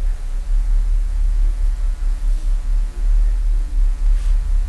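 Loud, low steady hum with uneven throbbing swells, and a faint click about four seconds in.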